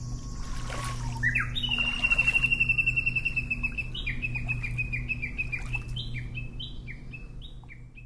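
A songbird singing: a fast trill about a second and a half in, then a run of short down-slurred whistled notes, about three a second, over a steady low hum. It all fades out near the end.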